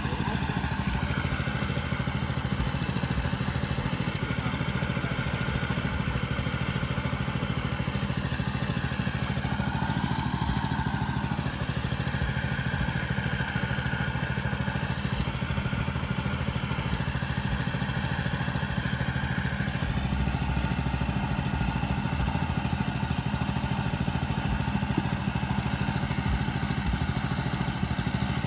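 Small engine-driven water pump running steadily at an even speed, draining the pond.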